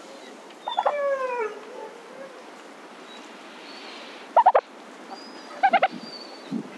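Domestic turkeys gobbling. About a second in there is a falling call, then a short rapid gobble around four and a half seconds and another near six seconds.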